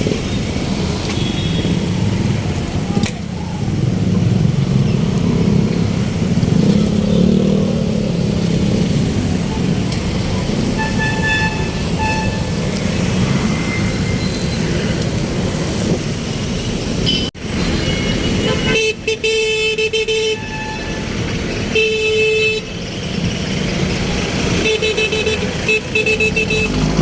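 Street traffic running steadily, followed after a cut by a vehicle horn honking in several short and longer bursts.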